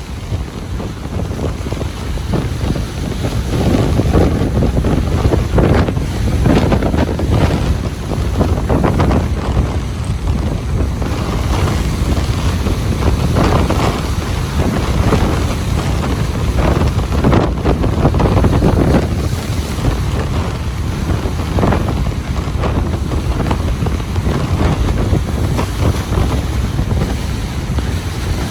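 Ocean surf breaking and washing in, a continuous rushing that swells and eases in irregular surges, with wind buffeting the microphone and adding a low rumble.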